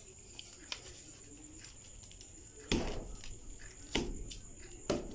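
A wooden stick knocking against foam brick wall panels: a few light taps, then three dull knocks about a second apart in the second half.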